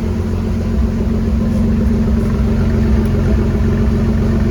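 1982 Chevrolet C10's engine running steadily at idle on a freshly installed replacement Rochester 2SE carburetor, sounding good without any tuning.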